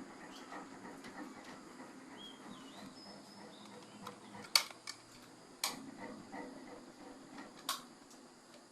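Kawa electric fan's motor humming steadily at a low pitch, the humming noise the owner is showing, with several sharp clicks in the second half and faint bird chirps behind it.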